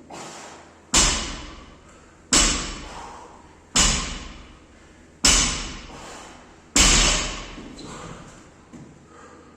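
Loaded barbell with bumper plates dropped onto the gym floor five times, about a second and a half apart, each drop a heavy thud that rings out briefly.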